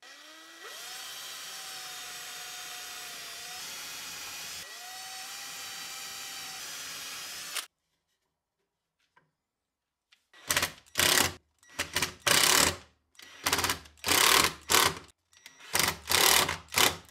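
A power drill spins a small bit through a laminated plywood block. Its whine rises as it speeds up, dips once midway, climbs again, and stops about seven and a half seconds in. A few seconds later come a string of short, loud trigger bursts as the driver sinks screws to fix a metal toggle clamp onto the block.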